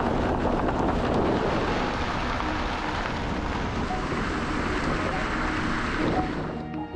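Wind rushing over the microphone, a steady gusting roar that cuts off abruptly near the end.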